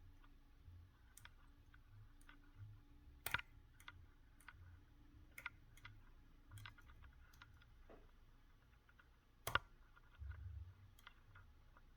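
Faint, scattered clicks of a Southord Slimline shallow hook pick working the spring-loaded pins of a BiLock NG lock under tension. Two sharper clicks stand out, one about a quarter of the way in and one about three-quarters of the way through.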